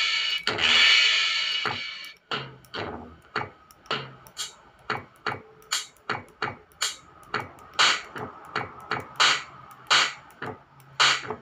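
Drum samples played through a loudspeaker by a homemade Arduino Nano drum pad with two DFPlayer Mini MP3 modules, triggered by keypad presses. A long ringing hit fades out by about two seconds in, then comes a run of short drum hits, two or three a second.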